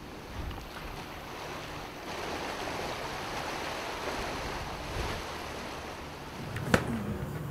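Sea water washing and splashing against the ship's side and around the CTD rosette as it is lowered into the waves, with wind on the microphone; the splashing swells for a few seconds in the middle. A single sharp knock near the end.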